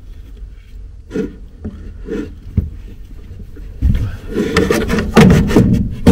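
Handling noise: a few soft knocks and a click, then from about four seconds in a louder run of knocks, rubbing and scraping as things are moved against the wooden cabinetry.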